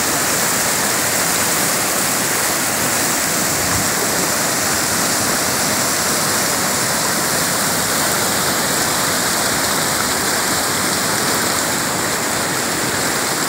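A river in flood, its muddy water rushing and churning over rapids: a steady, unbroken rush of fast water that does not change throughout.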